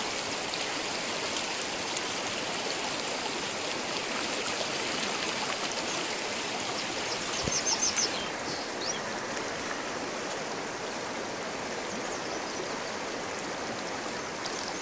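Shallow river riffle running over rocks: a steady rush of water, with a few brief high chirps about halfway through.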